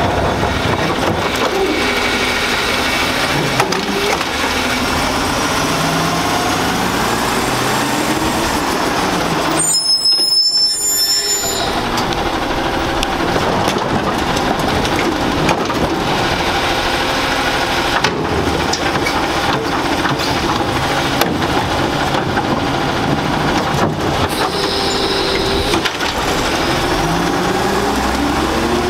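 Autocar automated side-loader garbage truck with a New Way body working a cart and pulling away: its diesel engine runs steadily, revving up and down in pitch as the arm hydraulics work and the truck moves off. A brief high squeal sounds about ten seconds in.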